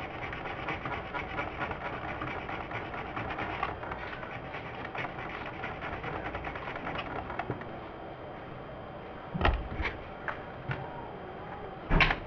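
Steady crackling full of fast clicks that thins out after about seven seconds, then a few knocks, two of them loud, as the opened receiver's metal case is handled near the end.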